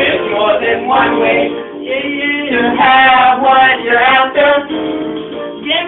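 Music: a song with male and female singing over instrumental backing.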